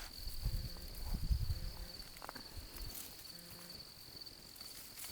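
Crickets chirping steadily in a high, pulsing trill, with a few low rumbles between about half a second and a second and a half in.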